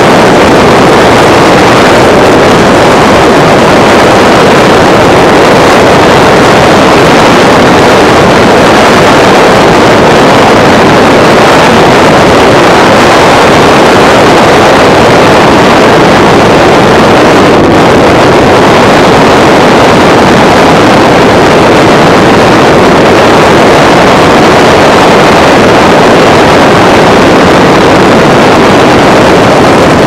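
Loud, steady rush of wind and road noise from a car driving at freeway speed.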